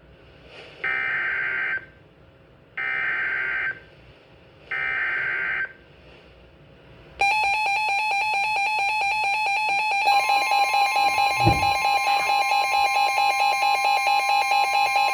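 Emergency Alert System SAME header on weather radio: three one-second bursts of buzzy digital data tones a second apart, then a steady electronic alert tone starts about seven seconds in and a second, slightly higher steady tone joins it about three seconds later, signalling the severe thunderstorm warning to follow. A brief low thump sounds partway through the alert tone.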